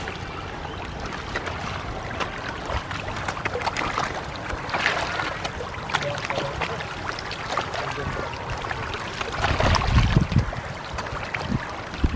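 Hybrid magur catfish crowding at the pond's edge, splashing and churning the water surface as they feed, with many small splashes throughout. A louder low rumble comes about ten seconds in.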